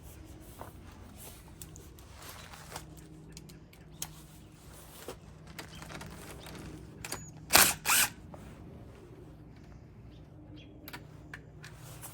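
Hand tools clicking and ratcheting on the 10mm nut of a terminal stud in a truck's engine bay, with scattered small metal clicks over a steady low hum. Two short, loud noisy bursts come about seven and a half seconds in.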